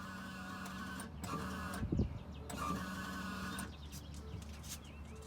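Fuel pump of a 2014 Ford Escape 2.0 EcoBoost whining, the whine stopping and starting a few times, with a thump about two seconds in. The owner suspects the pump is failing.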